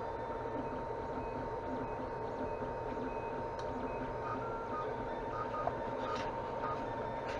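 Tevo Tornado FDM 3D printer printing: its fans run steadily under short whining notes from the stepper motors that change pitch as the print head moves, coming more often in the second half.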